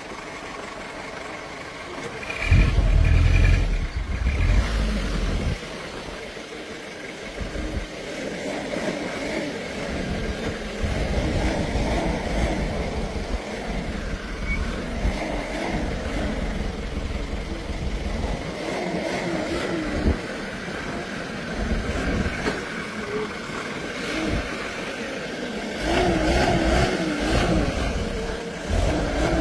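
Jeep engines running and revving unevenly on a rough dirt track, with a loud low rumble surging about three seconds in.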